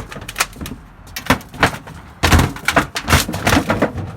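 Thin sheet-metal stovepipe being stomped flat underfoot: a run of crunching, clattering metal impacts, coming thicker and faster in the second half.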